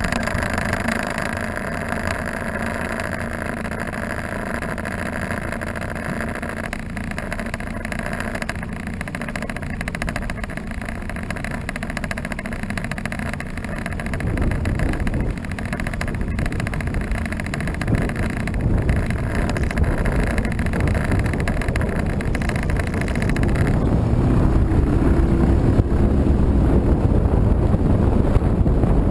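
Outboard motor running steadily, then opened up so it grows louder as the boat gets under way, with a rushing noise of water and air building over the last few seconds.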